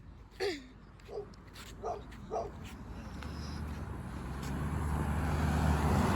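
A car approaching along the road, its engine and tyre noise swelling steadily over the last three seconds. Before it come four short yelping calls, the first falling in pitch.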